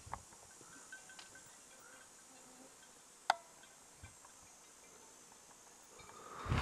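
Quiet outdoor background with faint insects buzzing, one sharp click a little over three seconds in, and a rustling noise that rises near the end.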